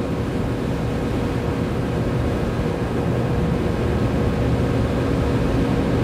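Steady machinery drone: a low hum with a few steady tones over an even rushing noise, growing slightly louder, with no knocks or tool sounds.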